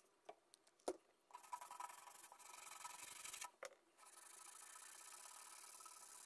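Faint scrubbing of a hand-held cleaning cloth rubbing the plastic frame of a MalletKAT electronic mallet controller, working off old adhesive residue from between the rubber pads. A few small taps come in the first second before the rubbing starts, and a knock breaks it briefly about midway.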